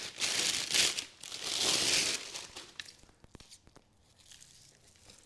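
Packing material crinkling and tearing as hands rummage through a shipping box: two loud spells in the first two seconds, then quieter rustling with small clicks.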